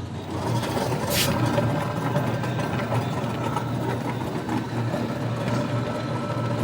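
Electric rickshaw wheel turning with a steady rough noise from its hub bearing, the sign of a failed bearing that has lost one of its balls. A sharp click about a second in.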